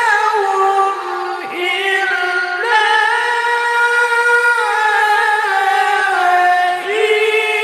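Male qari reciting the Quran in the melodic tilawah style, holding long ornamented notes in a high register with vibrato, stepping up and down between pitches.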